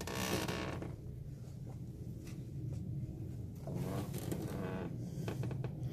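Faint rustling and a few light clicks of hands handling small parts, over a steady low background hum, with a brief faint mumble about four seconds in.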